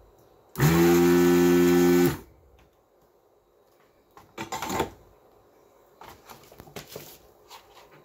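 ZD-985 desoldering gun's built-in vacuum pump running as a steady hum for about a second and a half, sucking molten solder out of the memory battery's solder joints. A short noisy burst follows about four and a half seconds in, then a few faint clicks.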